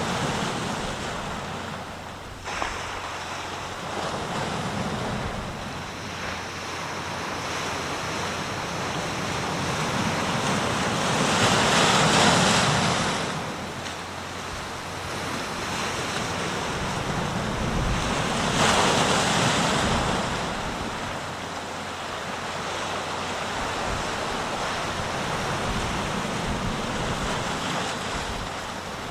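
Sea waves breaking and washing ashore in a steady rush, with two bigger waves crashing louder about twelve and nineteen seconds in.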